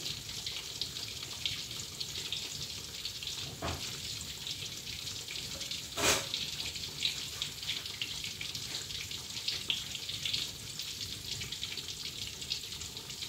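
Tempe frying in hot oil in a wok over a gas burner: a steady sizzle full of small crackles, with one sharp click about six seconds in.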